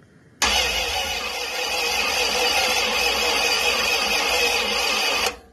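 Carbureted Gen III Hemi V8 (Edelbrock 750 four-barrel) firing up on its first start after the swap and running loud at the exhaust, then cutting off suddenly about five seconds later.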